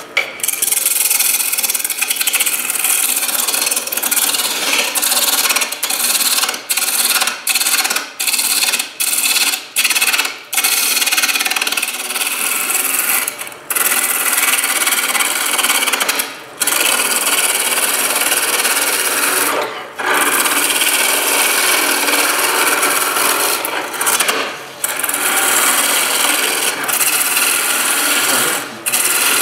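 A turning tool cutting a Banksia pod spinning on a wood lathe: a loud hissing cut as it works through the pod's fibrous outer fuzz toward the harder core. The cut stops briefly many times, in quick succession over the first ten seconds, then every few seconds.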